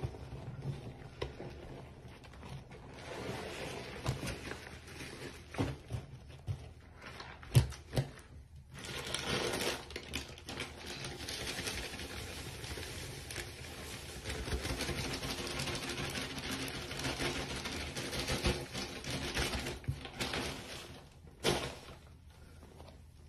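Soap suds foaming in a sink under a tap, with a steady hiss and many small crackles and pops. Near the end there is one sharp sound, then it turns quieter.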